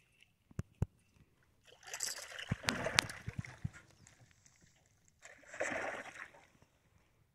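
A hooked peacock bass thrashing and splashing at the water's surface beside an aluminium boat, in two bursts a few seconds apart. A couple of sharp knocks come before the splashing.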